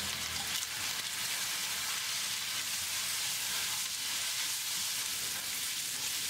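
Sliced pork, scallion and ginger sizzling in oil in a black wok while a spatula stir-fries them, a steady hiss.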